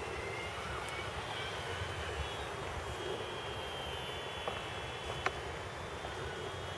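Faint high whine of an ultra-micro RC airplane's small electric motor and propeller flying overhead, over an even background hiss. A couple of sharp little clicks come near five seconds in.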